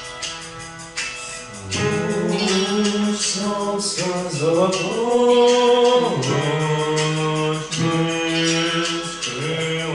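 A man singing held notes that slide between pitches over instrumental accompaniment with a steady beat.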